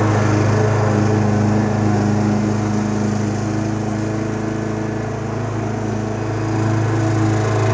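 Petrol walk-behind lawn mower running steadily while being pushed across grass, a little quieter in the middle of the pass as it moves away and louder again near the end.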